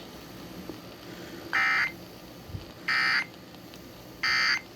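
Emergency Alert System end-of-message code: three short, identical buzzy data bursts about 1.3 seconds apart, signalling that the alert broadcast has ended.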